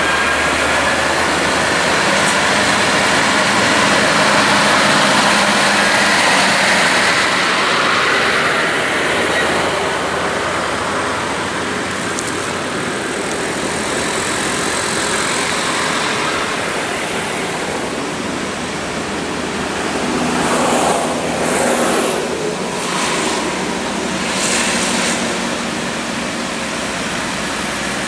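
Steady highway traffic of cars and trucks passing close by uphill, with tyre noise and engines running. Several vehicles pass close in quick succession near the end.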